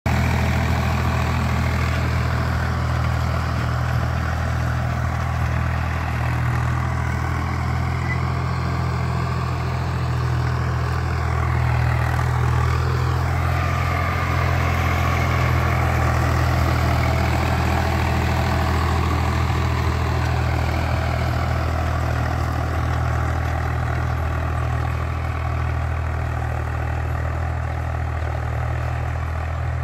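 Tractor's diesel engine running steadily under load as it pulls an 18-disc harrow through the soil, a continuous low drone.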